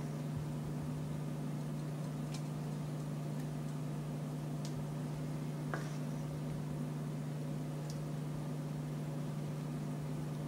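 A steady low machine hum, with a few faint ticks and pops from pancake batter cooking on a hot griddle.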